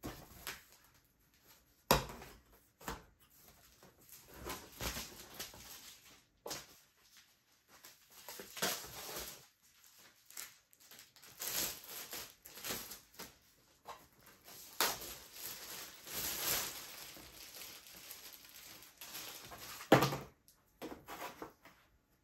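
Irregular rustling, scraping and knocking as canvases are handled and worked on, with a sharp knock about two seconds in and another near the end.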